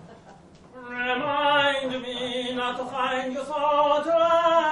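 A man singing a few long held notes, starting about a second in, the last ones pitched higher.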